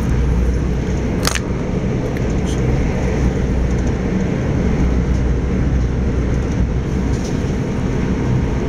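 Steady rumble of an Electrostar electric multiple unit running at speed, heard from inside the carriage, with one brief sharp click about a second in.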